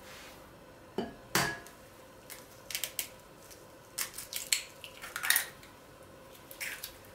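An egg knocked against the rim of a glass bowl and cracked open, heard as a string of sharp taps and clicks; two louder knocks come about a second in, and the loudest cluster comes about five seconds in.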